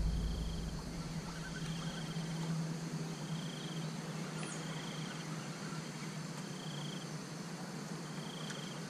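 An insect chirping in short, buzzy trills that repeat about every second and a half, over a steady low hum.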